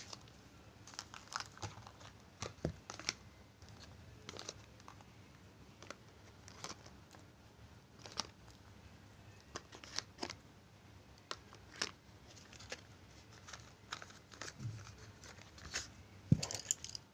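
Faint, scattered clicks, taps and rustles of small plastic poster-colour pots and a cardboard paint box being handled on a paper-covered table, with a slightly louder knock near the end.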